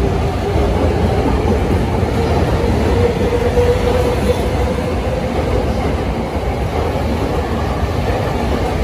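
A Rinkai Line 70-000 series electric train pulling away along the platform: a steady rumble of wheels on the rails, with a motor whine that slowly rises in pitch as it picks up speed, then fades about halfway through.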